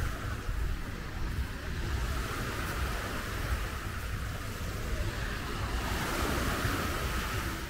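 Small sea waves washing onto a sandy shore as a steady wash of surf, with wind noise on the microphone underneath.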